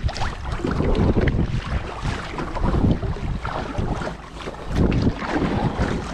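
Wind buffeting the microphone in uneven gusts, a low rumble that swells and drops every second or two.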